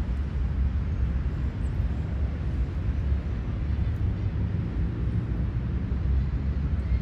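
Outdoor park ambience: a steady low rumble with a faint bird chirp about one and a half seconds in.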